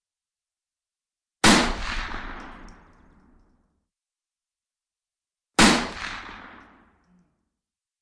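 Two rifle shots about four seconds apart, each a sharp crack followed by a long rolling echo that fades over about two seconds.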